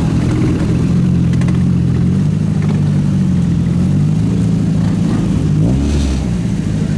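Car engine idling with a steady, deep exhaust note that wavers slightly in pitch, with a short rev about six seconds in.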